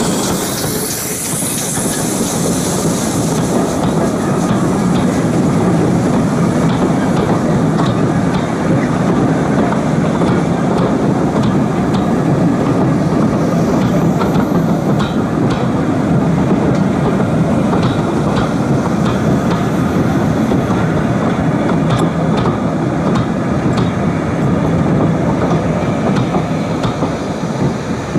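Steam train passing close by: a hiss of steam as the GWR 4200-class 2-8-0 tank engine goes by in the first few seconds, then the steady rumble and scattered clicks of its coaches' wheels rolling over the rails as the train runs past.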